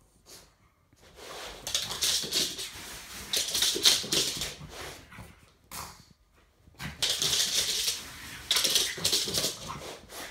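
A pug and a Maine Coon kitten scuffling in play on a shag rug: two spells of scratchy scrabbling, each a few seconds long, with a quiet gap between them.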